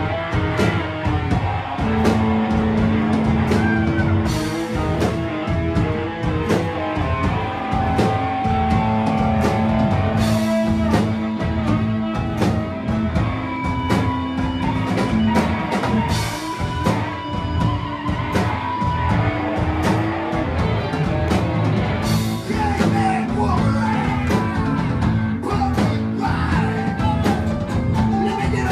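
Live rock and roll band playing loud, with electric guitars, saxophones and a drum kit keeping a steady beat with cymbal crashes, and long held notes over it.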